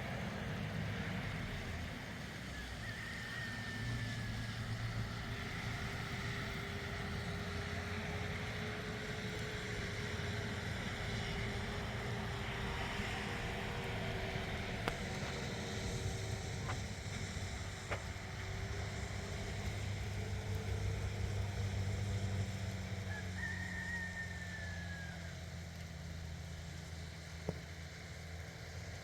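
A steady low rumble, like a running vehicle engine, with two short high falling chirps, one near the start and one near the end.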